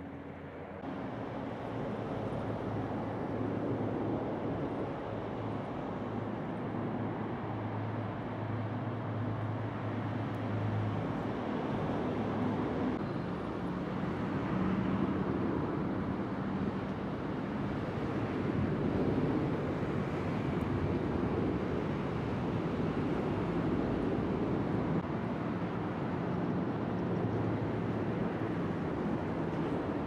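Steady low rumble of motor vehicles, with engine hums that rise and fade as they pass.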